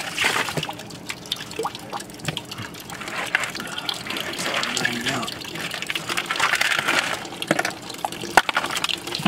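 Wet sloshing and squelching of raw whole plucked chickens being lifted and shifted in a plastic cooler, with many small splashes and knocks.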